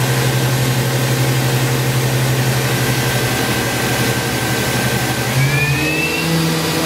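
Fadal 4020HT vertical machining center spindle running with a steady hum and a thin high whine, both stepping up in pitch about five seconds in as the spindle is ramped up toward 10,000 RPM.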